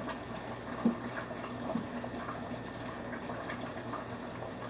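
Wooden stick stirring and working thick asida dough in a stainless steel pot: wet squelching with small knocks of the stick against the pot, one sharper knock about a second in. A steady low hum runs underneath.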